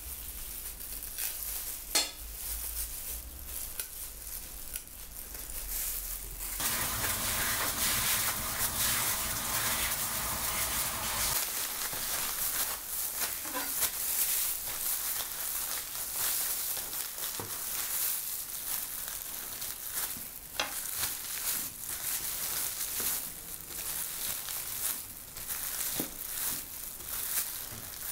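Clear plastic bag crinkling and rustling as gloved hands press and flatten a peeled root inside it on a plastic cutting board, with a few sharp taps.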